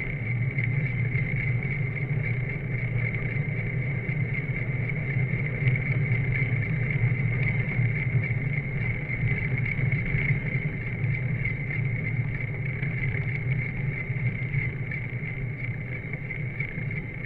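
Steady wind and road noise from a moving bicycle, picked up by a handlebar-mounted camera: a constant low rumble with a thin steady hiss above it.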